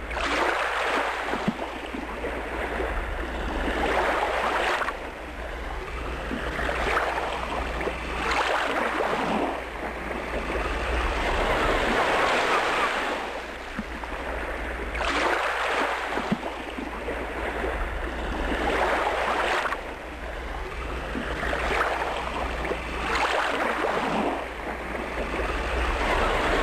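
Waves washing against the shore: a rushing noise that swells and fades every few seconds, over a steady low rumble.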